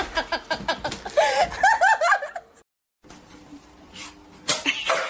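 A person laughing in quick repeated bursts that cut off suddenly, followed after a short silence by a few sharp knocks.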